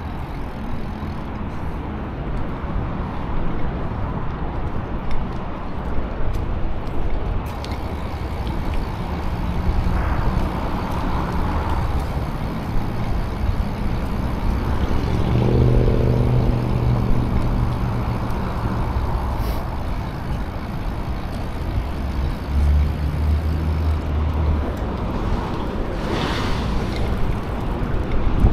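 Steady low rumble of wind and rolling noise while riding a BMX bike, with road traffic around. An engine hum stands out briefly about halfway through.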